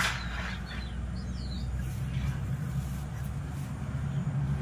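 A few faint bird chirps, short high glides in the first second and a half, over a steady low hum, with a light tap at the very start.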